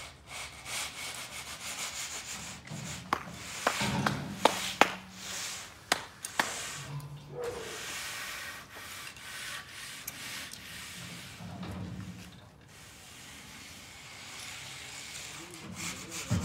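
Concrete finishing tools scraping and rubbing over a freshly poured slab, with a run of sharp clicks and knocks a few seconds in.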